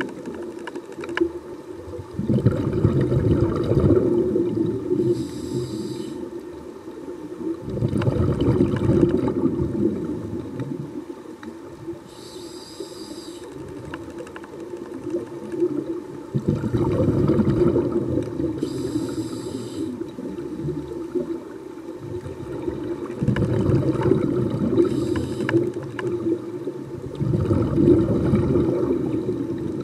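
Scuba diver breathing underwater, heard through the camera housing: a short hiss from the regulator on each breath in, then a longer rumble of exhaled bubbles, the cycle repeating about every five to six seconds.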